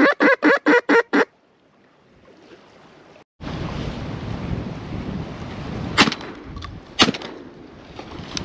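A rapid run of duck quacks, about six a second, stops about a second in. After a brief lull, wind buffets the microphone over lapping water. Two sharp shotgun shots go off about a second apart past the middle.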